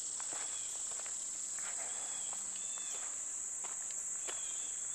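A chorus of insects shrilling steadily in one high, unbroken tone, with a few faint short chirps over it.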